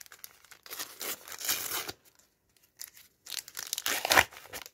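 A Topps sticker packet's wrapper being torn open by hand and crinkled, in two rustling bursts with a short pause between.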